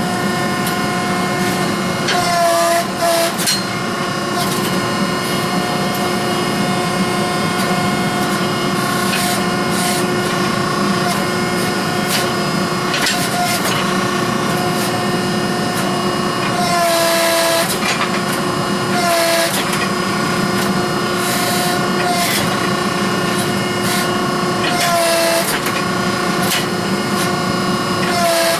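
Hydraulic forging press running with a steady, many-toned hum from its pump motor. The pitch sags briefly several times as the press bears down on a forge-welded steel billet, with scattered knocks.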